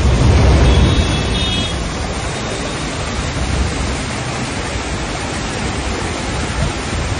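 Fast-flowing floodwater rushing and churning along a street, a steady loud roar of noise that is heaviest in the first second.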